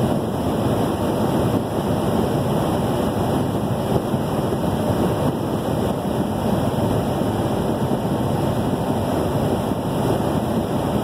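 Steady road noise inside a vehicle's cabin at highway speed: tyres on pavement and wind against the vehicle, an even noise with no distinct events.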